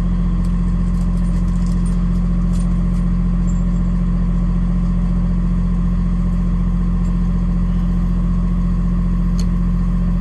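Box truck's engine idling steadily while it warms up, heard from inside the cab as an even low hum. A few faint light clicks come in the first few seconds.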